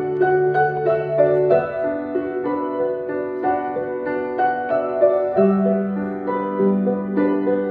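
Solo piano: held low notes under a flowing line of higher notes, the bass changing about one and a half seconds in and again after about five seconds.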